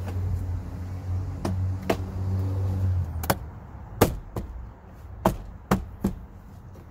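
Plastic door trim panel of a Ford Escape being pressed back onto the door: a series of sharp snaps and knocks as its retaining clips pop into place, about eight in all, the loudest about four seconds in. A low steady hum runs underneath and stops about three seconds in.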